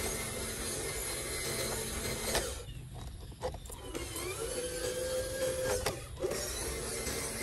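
Electric motor and gearbox of a radio-controlled model truck whirring steadily as it drives over grass; the whir drops away for about three seconds midway, then comes back.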